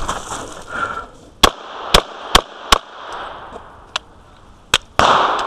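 Glock 35 pistol in .40 S&W firing at close range: four quick shots about a second and a half in, then more, more widely spaced shots.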